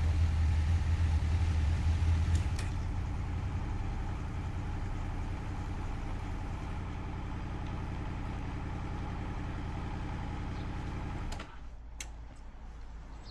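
Vehicle engine running, settling to a quieter idle about two seconds in, then switched off suddenly near the end, with a couple of clicks.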